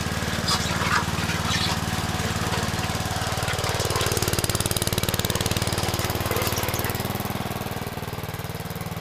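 Small single garden-tractor engine running steadily under load as it drives a homemade screw-drive vehicle's auger screws through gravel in second gear, with a few knocks and clatter in the first couple of seconds. The engine note shifts slightly about seven seconds in.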